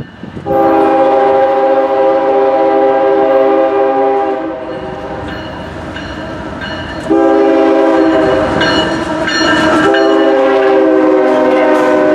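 Diesel locomotive air horn on an approaching CSX coal train, blowing a chord of several steady tones in three blasts: a long one of about four seconds, then after a pause of about two and a half seconds, two more in quick succession. Train rumble runs under and between the blasts.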